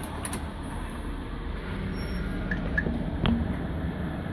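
Volvo D12 12.1-litre straight-six diesel of a Volvo B12M bus idling steadily, heard from the driver's cab, with a few small clicks about two to three seconds in.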